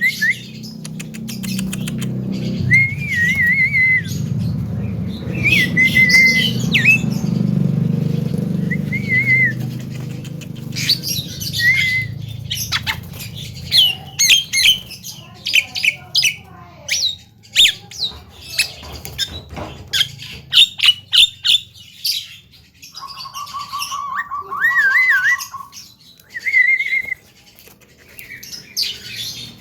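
Javan myna calling in a long varied string of short rising-and-falling whistles, sharp clicks and harsh squawks, with a steady pulsed note for a few seconds near the end.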